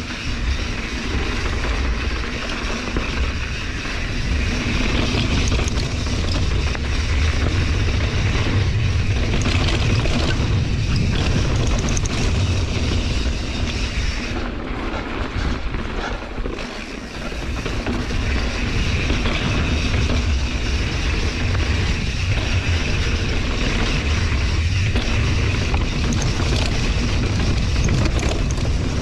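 Wind rushing and buffeting over a GoPro action camera's microphone during a fast mountain-bike descent, mixed with the knobby tyres rolling over a dry dirt trail and the bike rattling. The noise eases for a moment around the middle, then picks up again.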